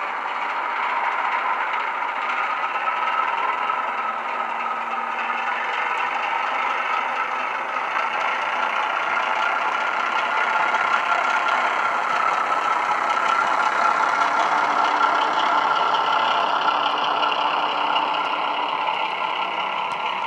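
Recorded Class 08 diesel shunter engine sound from a DCC sound decoder, playing steadily through the small speaker of a Bachmann model locomotive as it runs with a train of wagons. It has no deep bass and grows louder around the middle as the model passes close by.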